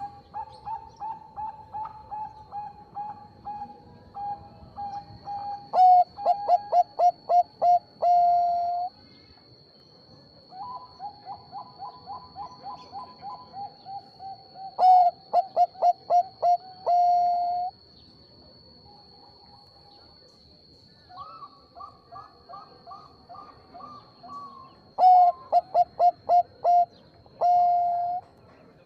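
Zebra dove (Bangkok-bred perkutut) singing: three song phrases, each a run of soft coos that builds into a quick series of loud, clipped notes and ends on one long held note.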